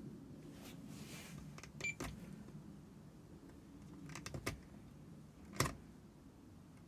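A few sharp plastic clicks from a handheld Fluke 10 digital multimeter being handled: one about two seconds in, a quick run of clicks past the middle, and a louder click near the end, over a faint low hum.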